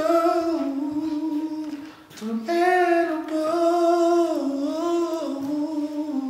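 A voice humming and singing a slow, wordless soul melody in long held notes, with a short breath about two seconds in.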